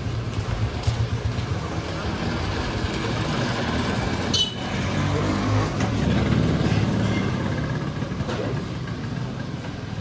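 Street ambience dominated by a small motorcycle engine running as it rides past close by, with people talking in the background and a short high-pitched squeak about four seconds in.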